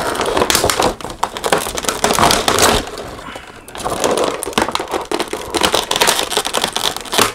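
Plastic toy packaging crinkling and crackling as it is handled and pulled apart by hand, in two long spells with a quieter lull about three to four seconds in.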